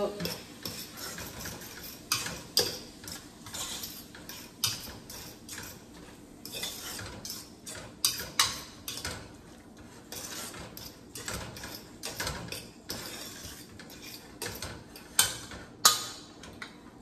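A spoon stirring ground meat and sausage in a stainless steel pot, scraping and clinking against the pot again and again, with the sharpest knocks near the end.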